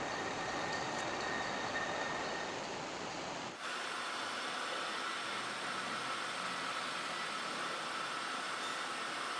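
Steady workshop machine noise with a faint whine, which changes abruptly about three and a half seconds in to a different, thinner steady machine sound with a higher whine.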